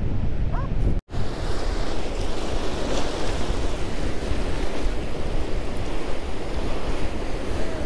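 Shallow seawater rushing and swirling around mussel-covered rocks as small waves wash in, with wind buffeting the microphone. The sound drops out briefly about a second in, at a cut, then the water noise carries on steadily.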